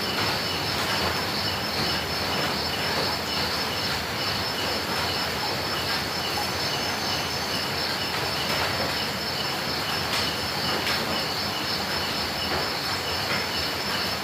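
Steady rain falling, with a continuous high-pitched chirring over it.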